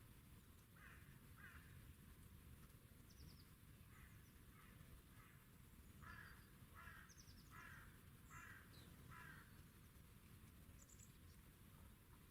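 Faint crow cawing: two caws, then a few softer ones, then a run of five caws a little under a second apart. Small birds give a few brief high chirps.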